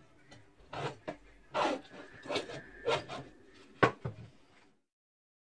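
A series of short scraping or rubbing strokes, roughly one a second, with a sharp click near four seconds in; then the sound cuts off abruptly.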